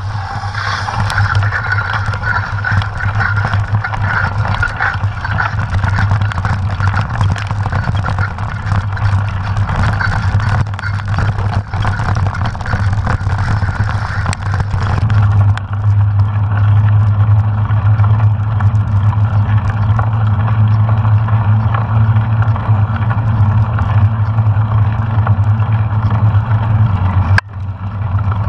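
Steady low wind rumble on the microphone of a camera carried by a mountain biker on a dirt singletrack, with rattling clicks from the bike and camera mount over the rough ground. The sound cuts out briefly near the end.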